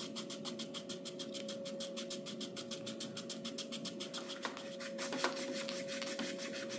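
Hand file rasping back and forth on a 3D-printed resin peg in quick, even strokes, about six a second, trimming the peg down. A steady hum runs underneath.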